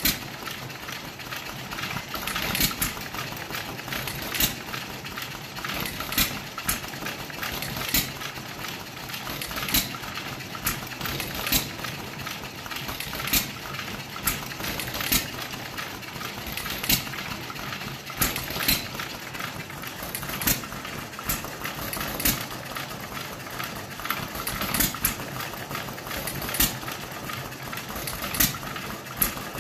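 Two hit-and-miss engines, a 2 hp Novo and a 1½ hp John Deere, running together: a sharp firing pop about every two seconds, with lighter clicks and knocks between the pops.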